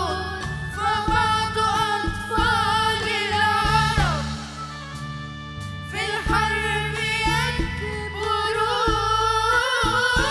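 Young singers performing an Arabic ballad over instrumental backing, holding long ornamented notes with vibrato. About four seconds in a sung line slides downward, the music eases for a couple of seconds, and the voices come back in about six seconds in.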